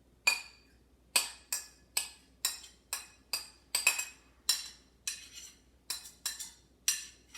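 A metal spoon clinking again and again against a metal kitchen vessel, about two sharp, ringing strikes a second, while yogurt is worked smooth.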